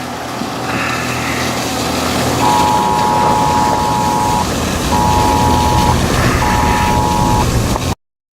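Steady rushing noise of wind and a vehicle during a storm chase. Three sustained tones, a long one and then two shorter ones, sound through it from about a third of the way in, and the sound cuts off abruptly just before the end.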